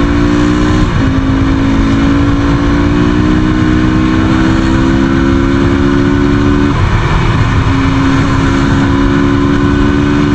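Motorcycle engine pulling through the gears while riding: its pitch climbs steadily and drops at a gear change about a second in, then climbs again to a second gear change near seven seconds. A steady low rush runs underneath.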